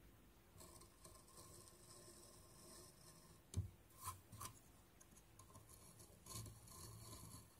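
Faint short scrapes of a hand carving blade cutting into a carved wooden panel, with a sharper click about three and a half seconds in and two softer ones just after.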